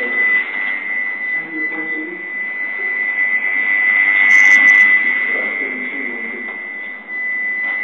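Small electric competition robot driving and turning on its table: a steady high-pitched whine under a whirring hum that swells a little past the middle and then eases off.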